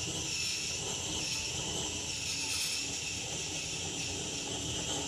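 Handheld propane torch burning with a steady hissing roar, its flame played into a tin can to melt bismuth chips.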